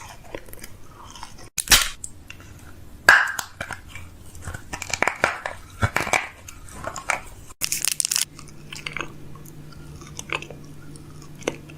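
A person biting and chewing loaded fries close to the microphone, with a run of sharp crunches, the loudest about two and three seconds in. The sound breaks off abruptly a couple of times.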